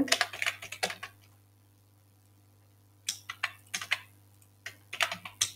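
Typing on a computer keyboard: quick key clicks in two bursts, with a pause of about two seconds between them.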